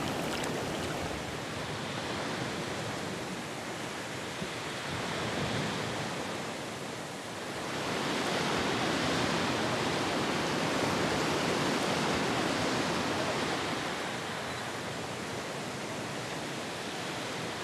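Sea surf washing against volcanic rock: a steady rush of water that swells into a louder surge about eight seconds in and eases off again a few seconds later.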